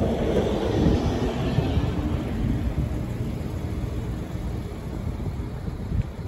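Wind rumbling on the microphone, with a passing vehicle swelling and fading over the first two seconds.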